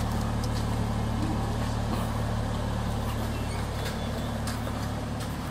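Steady low mechanical hum, like an engine or motor running, under a constant noisy background.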